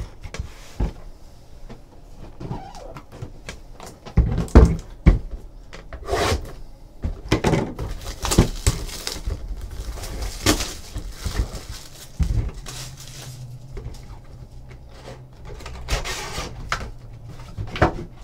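Cardboard trading card boxes handled and set down on a table: a string of knocks and thumps, the loudest about four seconds in and again about twelve seconds in, with lighter taps and rustling between. A low steady hum comes in about twelve seconds in.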